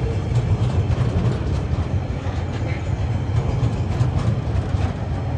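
Freight train's log-laden flat wagons rolling past at close range: a steady low rumble of steel wheels on rail, with occasional light clicks.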